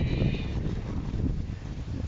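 Wind buffeting the microphone as an uneven low rumble, with a faint high whine in the first half second.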